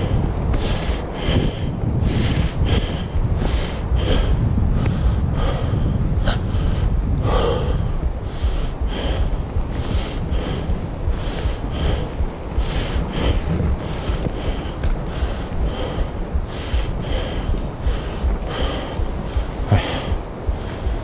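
A person breathing hard while walking, close to the microphone, in an even rhythm of about two sounds a second over a low rumble.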